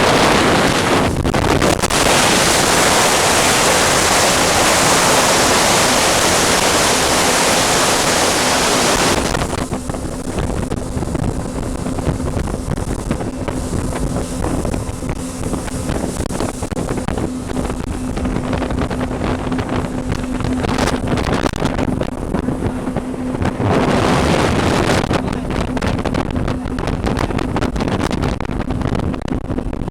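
Wind blasting the microphone aboard a moving motorboat, very loud at first. About a third of the way in the wind drops and the boat's steady engine hum and water noise show through, until a brief strong gust about three quarters of the way in.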